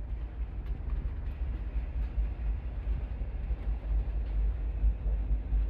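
Steady low rumble of a large passenger ferry's machinery, heard inside the ship, with a few faint clicks.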